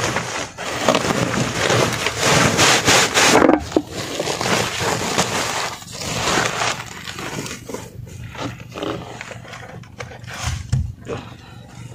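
Rustling and scraping of a woven plastic sack and a nylon fishing net being handled against a wooden boat hull, with crackly bursts that are loudest in the first three to four seconds and then thin out to lighter rustles.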